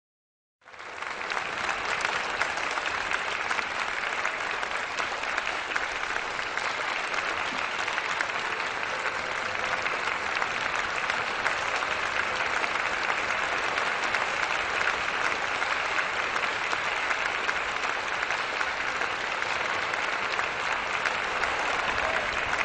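Audience applauding steadily, beginning just under a second in.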